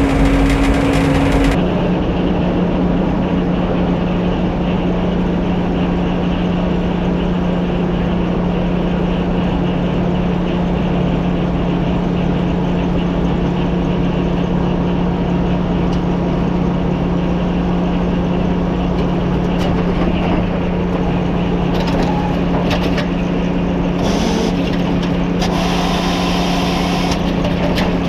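Old Frick sawmill running steadily while sawing pine into 2x6s: a loud, constant machine hum whose pitch drops about a second and a half in and then holds steady, with more rattle and clatter near the end.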